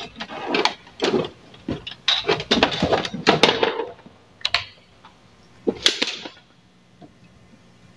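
Clicks, taps and scrapes of hand tools working on a TV power-supply circuit board, as one leg of a diode is lifted free for testing. Dense for the first half, then two short sounds.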